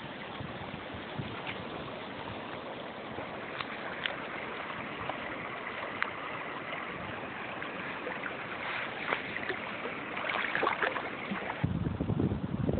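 Shallow river water running and lapping at the bank, with small splashes and clicks as a caught common nase is handled in the water, busier a few seconds before the end. Near the end a sudden low rumble starts on the microphone and the sound gets louder.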